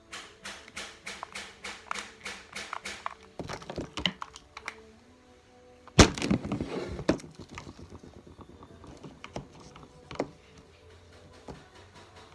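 Plastic Imaginext Batwing toy being handled: a quick run of sharp clicks, about five a second, for the first three seconds. Then scattered clicks, a loud thud about six seconds in with a short clatter after it, and a few small knocks.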